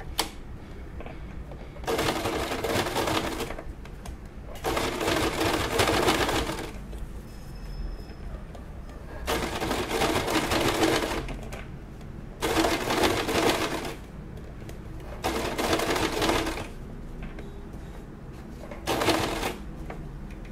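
Domestic sewing machine running in six short bursts of straight stitching, each a second or two long, with pauses between as the fabric is repositioned.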